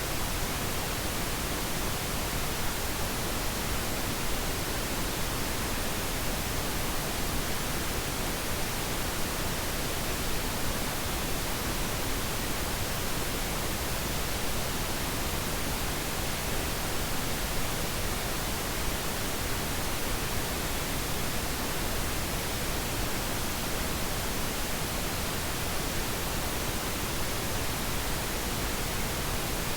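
Steady pink noise: an even, unchanging hiss spread across all pitches, with no events or changes.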